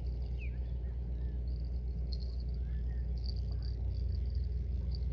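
Insects chirping in short high repeated pulses, with a few brief bird whistles, over a steady low rumble.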